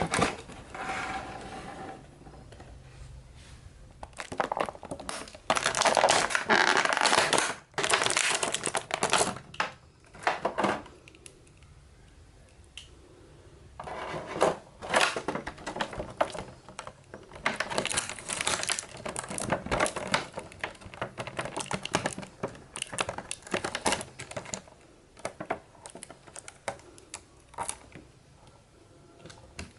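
Action figure packaging being handled and opened: plastic and cardboard crinkling and rustling in irregular bursts, with many sharp clicks and taps.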